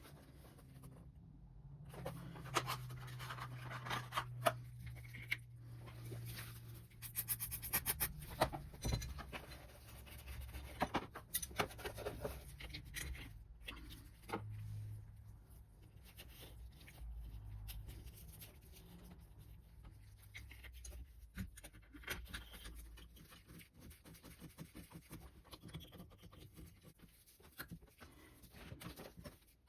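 Intermittent clicks, knocks and scraping of hand tools and metal parts being handled while the oil strainer is worked on and its torn gasket replaced.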